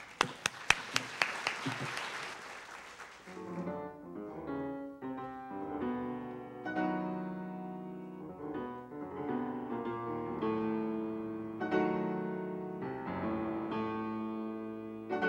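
Audience applause for the first three and a half seconds or so, then a Steinway & Sons grand piano starts a classical solo piece, played steadily.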